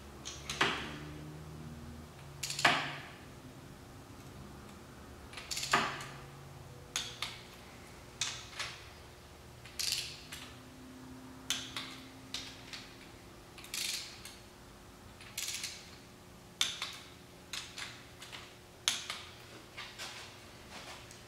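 Torque wrench ratcheting in short strokes at irregular intervals as the Polaris Sportsman 500 engine's bolts are tightened in a crossways pattern to 11 foot-pounds, the first stage of a torque-and-angle sequence.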